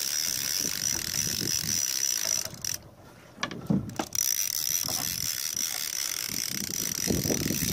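Conventional revolving-spool fishing reel being cranked, its gears and ratchet clicking, over a steady high whine. The sound briefly drops away about three seconds in.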